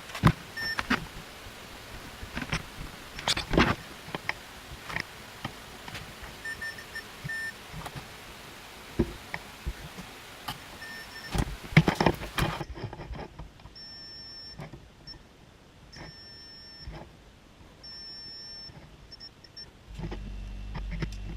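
Irregular clicks and knocks of handling on a workbench, with short runs of high electronic beeps in between. A low steady hum comes in near the end.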